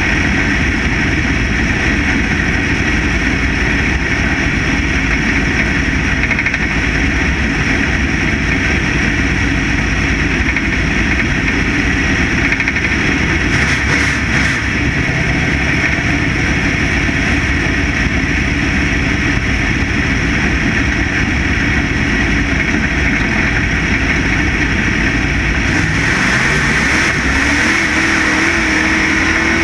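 Factory stock dirt-track race car's engine running hard at racing speed under a steady rush of noise from the camera on the car. Near the end the engine note climbs as the car accelerates.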